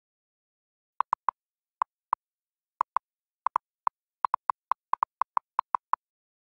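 Edited-in sound effect: a string of about twenty short, same-pitched pops at an uneven pace, starting about a second in and stopping near the end.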